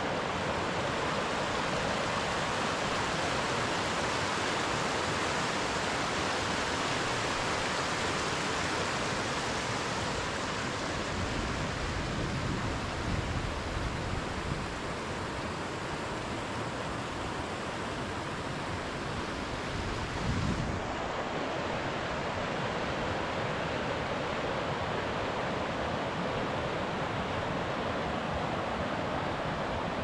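Fast, shallow mountain stream rushing over stones: a steady, even rush. Wind buffets the microphone now and then in the middle, with a short bump about twenty seconds in.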